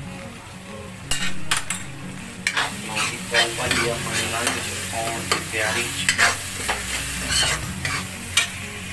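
Metal spatula stirring and scraping pav bhaji vegetables around a metal kadhai, with the spiced mixture sizzling as it fries. The scraping strokes start about a second in and come again and again.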